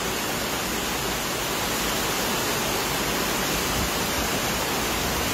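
Torrential rain and brown floodwater rushing through a street, heard as a steady, even hiss that never lets up.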